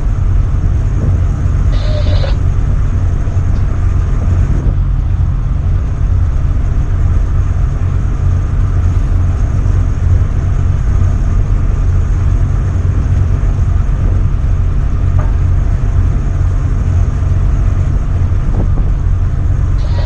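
Steady, heavy low rumble of a tugboat underway, its diesel engines running under a haze of wind noise.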